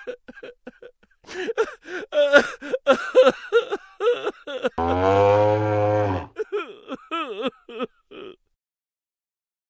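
Short, high-pitched vocal sounds, then a man's long, low groan with a slowly falling pitch about five seconds in.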